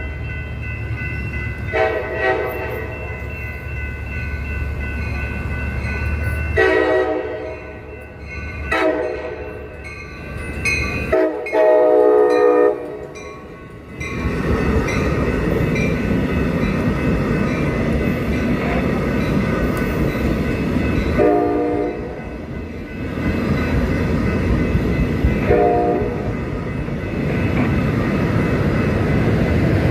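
Amtrak passenger train departing: its diesel locomotive's multi-chime horn sounds four long blasts, the last the loudest. Then the train runs past with a loud, continuous rumble, and the horn sounds two shorter blasts partway through.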